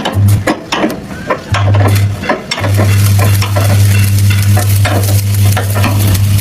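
Electric arc welding: the crackling sizzle of the arc over a steady low hum. The arc catches briefly twice before holding steady from about two and a half seconds in.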